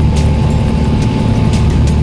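Steady drone of a small propeller airplane's engine inside the cabin, a loud, even low hum with a faint higher tone over it and light ticks recurring about twice a second.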